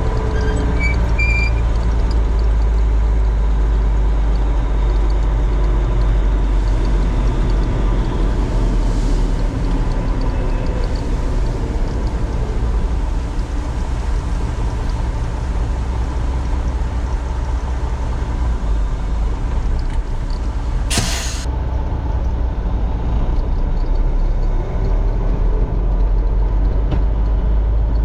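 Heavy diesel farm or truck engine running steadily with a deep rumble, and a short, sharp hiss of air about three-quarters of the way through.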